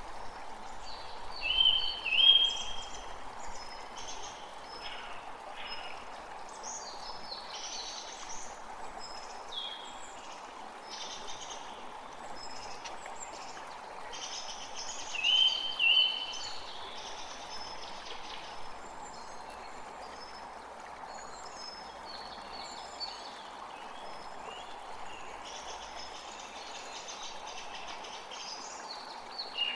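Birds singing and calling over a steady rush of running water. The loudest call is a pair of short notes heard twice, once near the start and again about halfway.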